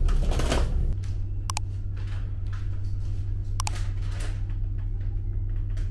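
Steady low electric hum inside a regional train carriage, with two sharp ticks about two seconds apart.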